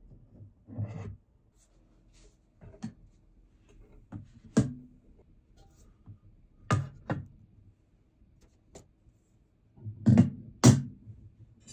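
Aluminium PC case panels and frame parts being handled and set down on a wooden desk: a scattered series of sharp knocks and clicks, the loudest two close together near the end.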